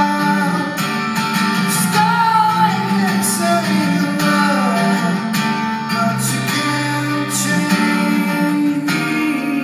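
Acoustic guitar strummed live, with a male voice singing over it, in a large hall.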